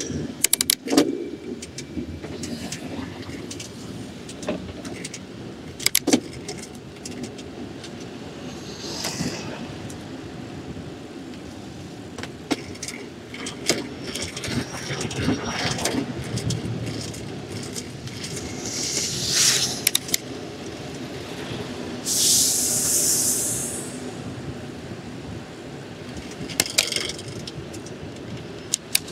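City street traffic heard from a moving bicycle: cars and vans passing with a steady low rumble, over frequent light rattles and clicks. A short high hiss comes about two-thirds of the way through.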